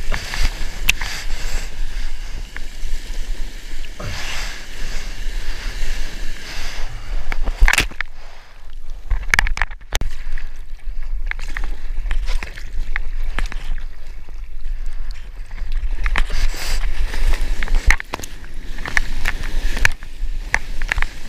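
Ocean whitewater splashing and sloshing around a surfboard while a surfer paddles by hand, with arm strokes slapping the water, picked up close by a mouth-mounted action camera over a steady low rumble.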